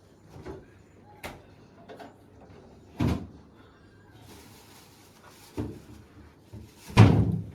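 A series of separate knocks and bangs, six or so spread irregularly, the loudest near the end, with a brief rustle in the middle.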